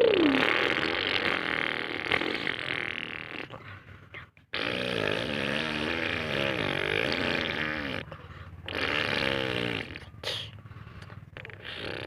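RC truck's motor revving and straining, its pitch rising and falling unevenly from about four seconds in, with rough, noisy running around it.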